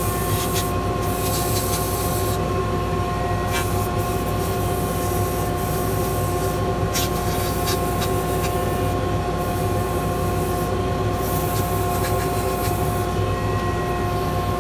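Mini lathe motor running steadily with a constant whine, while sandpaper held against the spinning spalted maple bangle hisses in intermittent strokes.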